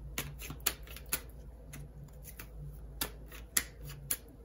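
Scattered light clicks and taps of cards being handled on a table, irregular and a few each second.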